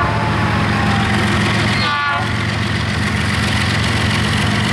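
A lashup of EMD diesel freight locomotives passing close by, the engines running with a steady low drone. A thin, steady high tone runs over it, with a brief chirp about two seconds in.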